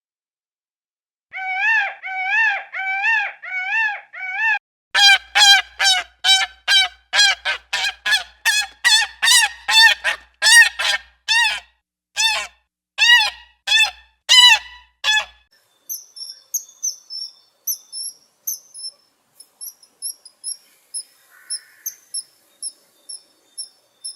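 Goose honking: a run of about seven pitched calls, then a fast, loud series of short honks at about three a second that stops about fifteen seconds in. Faint, high repeated chirps follow.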